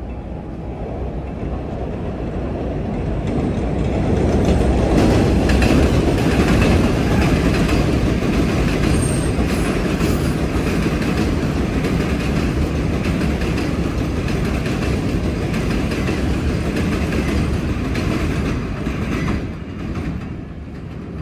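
New York City Subway 7 train of R188 cars running along the elevated Flushing Line, wheels clacking over the rail joints. The sound builds over the first few seconds, stays loud, and falls away near the end.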